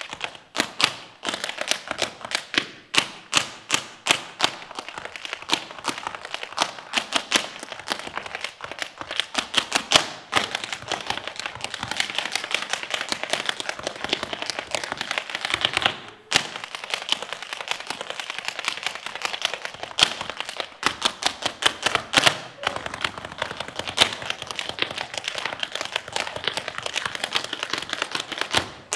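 Tap shoes striking a stage floor in fast rhythmic patterns, unaccompanied by music. The taps run in dense rapid strings with a brief break about 16 seconds in.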